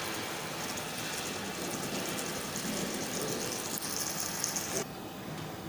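Chopped tomatoes, onion and garlic sizzling and simmering in a steel saucepan over a gas burner, a steady hiss that cuts off suddenly near the end.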